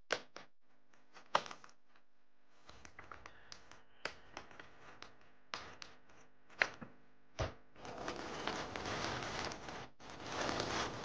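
Clear plastic clamshell food container clicking and crackling as it is handled and its lid is opened, with a duller knock about seven seconds in. From about eight seconds on, the thin plastic bag of banana chips inside crinkles and rustles continuously.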